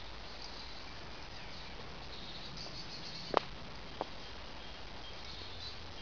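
Faint high chirping of insects or small birds over a low outdoor rumble, broken by two sharp clicks a little over three seconds in and again about half a second later.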